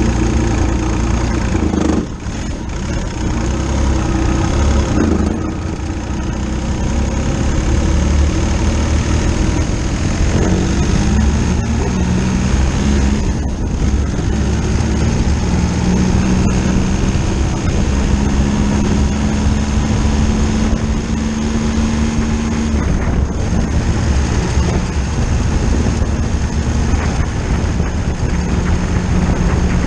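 Diesel motorcycle under way, powered by a VW Lupo 3L 1.2-litre three-cylinder turbodiesel. The engine note drops back and climbs again several times as the bike speeds up and eases off.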